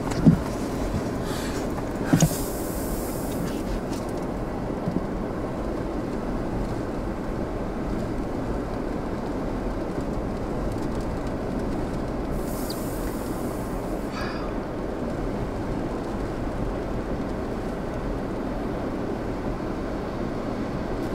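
Steady low rumble of storm wind blowing across the microphone, with two brief higher hisses, one about two seconds in and one about twelve seconds in.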